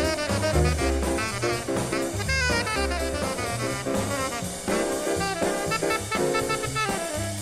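Recorded jazz: a horn playing quick melodic runs over drum kit and a moving bass line.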